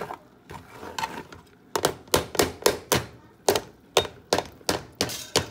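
Metal spoon scraping and knocking against a plastic strainer while pressing blended red chile through it into a metal pot. A few scattered strokes, then from about two seconds in a quick regular run of sharp strokes, about four a second.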